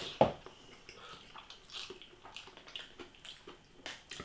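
A person eating instant ramen noodles: soft wet mouth clicks and smacks of slurping and chewing, with one sharper smack just after the start.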